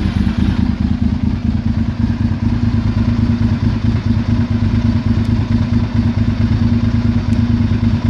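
A 2002 Honda RC51 SP2's 90-degree V-twin is idling steadily through a Yoshimura slip-on exhaust: a loud, even, low-pitched pulse with no revving.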